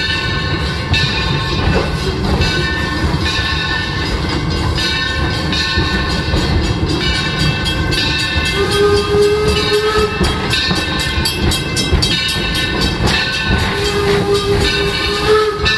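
Steam train running, the coach wheels rumbling on the rails, with the steam whistle of the locomotive Torch Lake blowing a steady blast about halfway through and again near the end.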